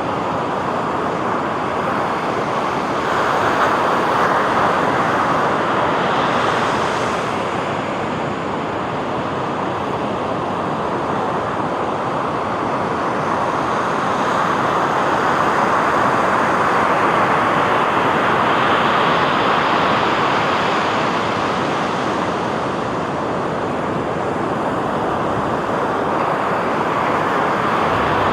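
Sea waves washing onto a beach: a steady rush of surf that slowly swells and eases as waves come in.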